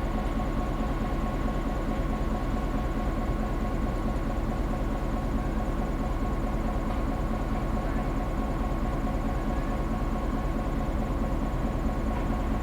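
EMD GP9 diesel locomotive's two-stroke V16 engine running at a steady speed, a constant low rumble with a steady whine on top.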